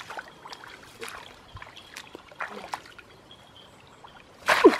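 Shallow muddy water trickling and dripping as a bamboo plunge trap is lifted and worked in it, with small splashes. A louder splash comes near the end as the trap is pushed back down into the water.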